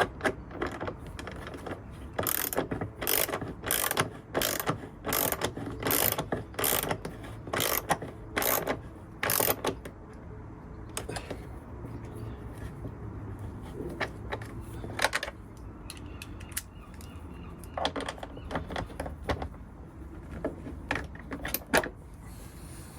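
Hand ratchet clicking in quick strokes as it tightens bolts, a burst of clicks about every half second or so, then slower and more scattered strokes from about ten seconds in.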